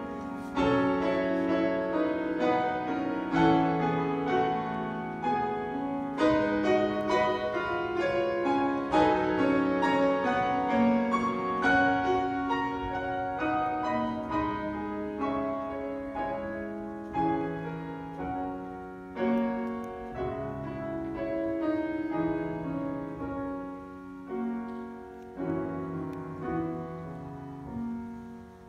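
Grand piano playing a solo passage of flowing notes without the choir, growing softer in the second half.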